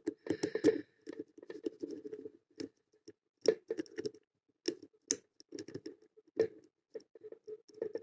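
Lock pick scraping and clicking against the pins inside a pin-tumbler padlock's keyway, in an irregular run of small clicks and short scratches, while a tension wrench holds heavy turning force against the lock's stiff actuator spring.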